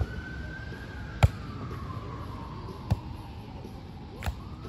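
A volleyball struck by players' hands and forearms four times in a rally: sharp slaps about one and a half seconds apart, the loudest about a second in. A siren slowly falls in pitch in the background.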